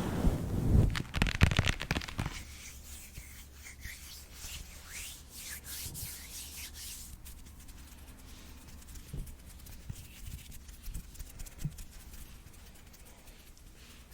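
Rubbing and scratching close to the microphone, loud for about the first two seconds, then fainter with a few light clicks.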